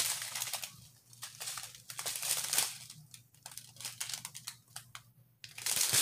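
Small clear plastic bags of diamond-painting drills crinkling as they are handled, in irregular bursts with short pauses between.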